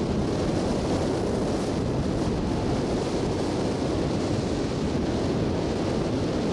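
Steady rush of wind on the microphone of a camera carried on a moving motorbike, mixed with the motorbike's running engine and tyre noise.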